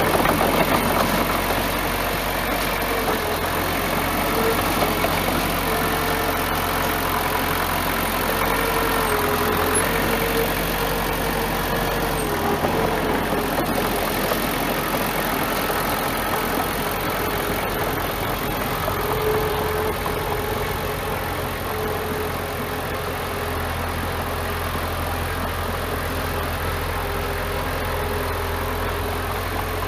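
Bulldozer's diesel engine running steadily, its pitch wavering a little as it works.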